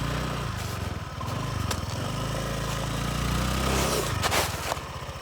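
Motorbike engine running, its revs rising and falling, with a few sharp knocks, the loudest about four seconds in.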